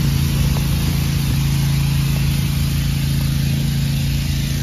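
Steady motor-vehicle noise: an engine hum that holds one pitch over an even hiss, as from a running car or nearby road traffic.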